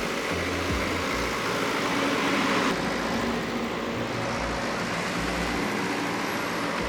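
Diesel engine of a JCB backhoe loader running steadily while it digs and loads soil.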